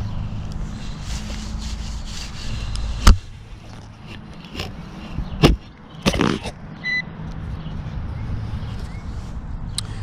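A shovel digging into soil: sharp strikes about three seconds in, then twice more around five and a half and six seconds. Near the seven-second mark a metal detector gives a short high beep, over a steady low hum.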